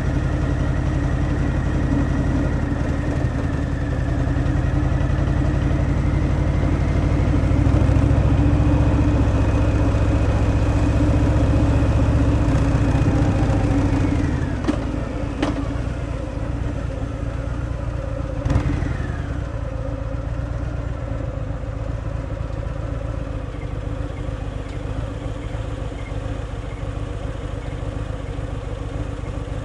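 Harley-Davidson Milwaukee-Eight 114 V-twin on stock exhaust, running under way on the road. It pulls loudest for about the first half, then the throttle comes off about halfway through, with a few sharp clicks. After that it runs on steadier and quieter.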